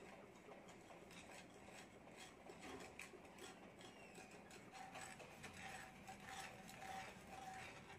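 Thin metal stirrer scraping and swirling dry brown sugar granules around a nonstick frying pan: faint, irregular gritty scratching and small ticks.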